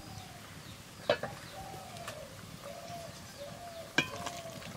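A metal utensil clinks sharply against a cooking pot a few times, loudest about a second in and again near the end. Behind it a bird gives a series of short, low, arching calls.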